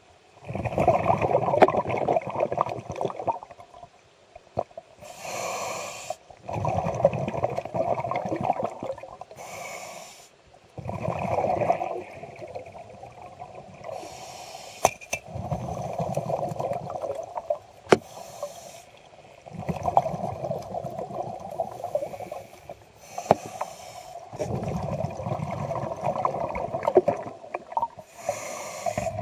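A scuba diver breathing through a regulator underwater. There are about six exhalations, each a burst of bubbling lasting two to three seconds, with short hissing inhalations between them.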